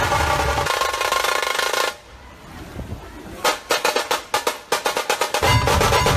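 Festival drumming in the dhol-tasha style. It follows a loud, dense din that cuts off abruptly about two seconds in. After a short lull, fast drum strikes start up like a drum roll, and deep bass drum beats join in near the end.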